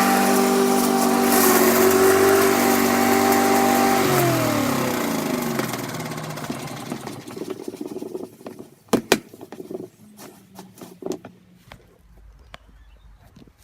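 Victa rotary lawn mower engine running steadily, then shut off about four seconds in and winding down, its pitch falling over a couple of seconds. Afterwards a few sharp clicks and knocks, the loudest a quick pair near the middle.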